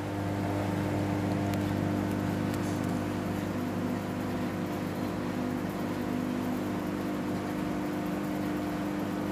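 IFB microwave oven running mid-cycle: a steady electrical hum with fan noise.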